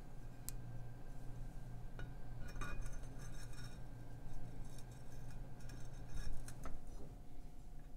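Light metallic clinks and taps from a metal outboard propeller being slid back onto its propeller shaft and seated by hand, over a steady low hum that stops near the end.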